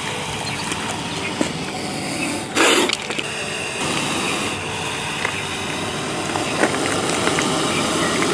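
Indian spectacled cobra hissing: one short, loud hiss about two and a half seconds in, over steady background noise.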